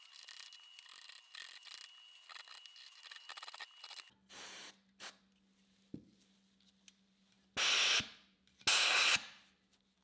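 Hand deburring blade scraping the sharp edges of a lathe faceplate's bolt holes in quick repeated strokes for about four seconds. Then two short blasts from a compressed-air blow gun, each about half a second, the loudest sounds.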